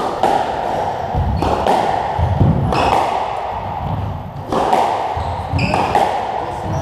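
A squash rally: the hard rubber ball cracks off the rackets and the court walls with a sharp, echoing impact every second or so. Brief high squeaks of court shoes on the wooden floor come between the shots.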